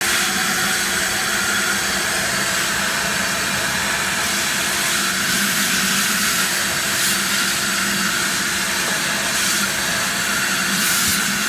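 RIDGID portable shop vacuum running steadily while its nozzle is worked over a floor: a constant motor whine under a rush of air hiss, with a few brief surges in the hiss late on.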